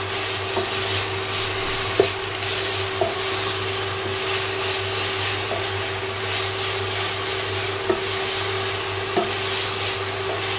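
Finely shredded green cabbage leaves sizzling in a nonstick pot as a wooden spatula stirs them, with a few sharp knocks of the spatula against the pot and a steady hum underneath.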